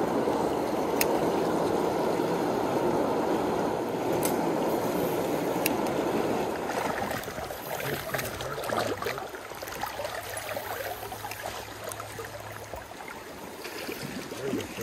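Stream water rushing out of a corrugated metal culvert, then, about seven seconds in, a quieter steady flow over a shallow riffle. A few faint clicks sound over the water.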